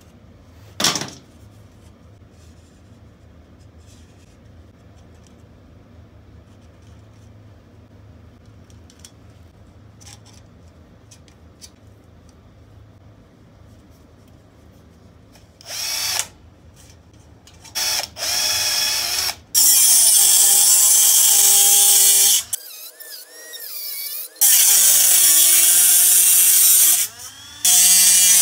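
One snip of tin snips through thin sheet metal about a second in, over a low hum. From about halfway, a handheld rotary tool with a small abrasive cut-off disc starts up and cuts the sheet metal in several loud bursts of high whine, its pitch dipping as the disc bites into the metal and rising again as it frees up.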